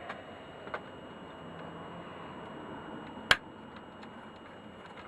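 Light clicks and taps of a screwdriver and small screws being worked on the dosemeter's metal casing, with one sharp, loud click a little over three seconds in.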